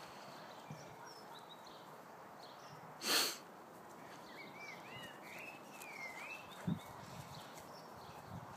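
Faint birdsong, with scattered chirps and a run of rising-and-falling whistled notes near the middle. About three seconds in comes one short, loud burst of breathy noise, the loudest thing heard.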